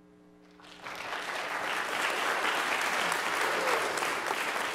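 Audience applauding: the clapping starts about half a second in, swells within a second and goes on steadily.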